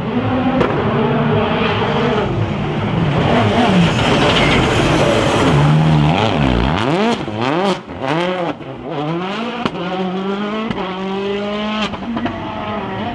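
Rally car engine at high revs, its pitch repeatedly dropping and climbing again through the gears from about halfway, with several sharp cracks in the second half.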